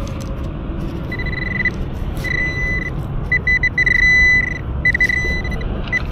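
Nokta Accupoint pinpointer's buzzer sounding one high-pitched tone in broken beeps from about a second in, running together into a longer, louder steady tone around four seconds in: the probe is closing on a buried coin. A low rumble runs underneath.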